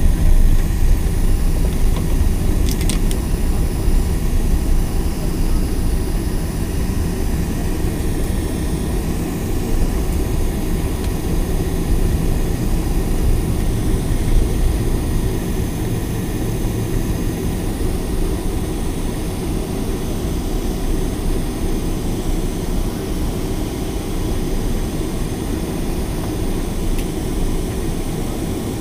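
Cabin noise inside a Boeing 747 on its landing rollout: a steady low rumble that slowly eases as the jet slows down on the runway, with one short click about three seconds in.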